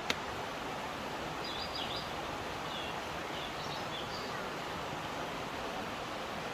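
Steady outdoor background noise with a few short, high bird chirps between about one and a half and four and a half seconds in.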